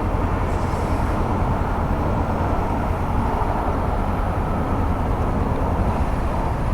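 Steady rush of wind and road noise from a 2014 Honda CB500X motorcycle riding on, its engine buried under the wind.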